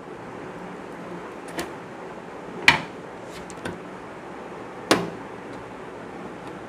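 A few short, sharp plastic clicks and taps, two of them louder, from handling a cabinet fan's small power connector as it is plugged onto the motherboard's system fan header, over a faint steady hiss.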